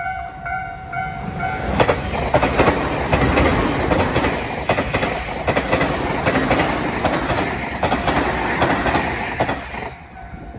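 Japanese electronic level-crossing warning bell ringing in quick repeating pulses, about three a second; one of its two sounders is a little higher-pitched than the other. About two seconds in, a Tobu train passes over the crossing, its wheels clattering over the rail joints for about eight seconds and drowning out the bell. The bell is heard again faintly near the end as the train clears.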